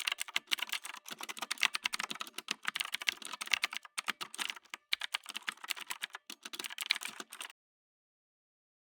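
Rapid, irregular typing: a quick patter of key clicks that cuts off suddenly about seven and a half seconds in.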